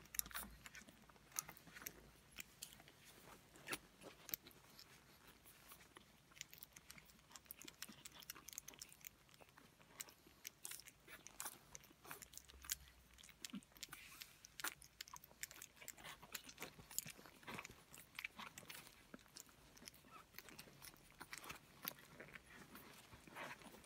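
Three-week-old pug puppies licking and smacking at soft fresh food on a plate, their first tastes of solid food: a faint, irregular stream of small wet clicks and smacks.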